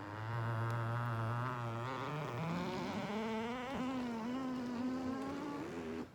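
Leather recliner couch giving a long buzzing drone as it is raised, low at first and stepping up to a higher, wavering pitch about halfway through, then stopping just before the end. An abnormal noise from the recliner, which the owner counts as a problem with the couch.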